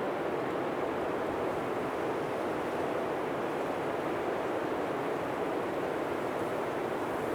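Blizzard wind blowing steadily, an even rushing noise with no gusts or breaks.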